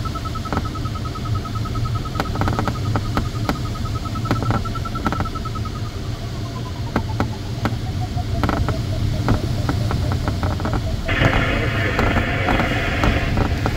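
Glider variometer beeping rapidly at a high pitch while the glider climbs in cloud, its pitch gliding down about halfway through as the climb weakens, over steady cockpit airflow noise. Scattered sharp clicks run throughout, and a burst of hiss lasts about two seconds near the end.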